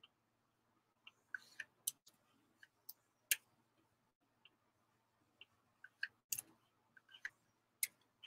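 Faint, irregular clicking of a computer mouse: a dozen or more short clicks at uneven intervals.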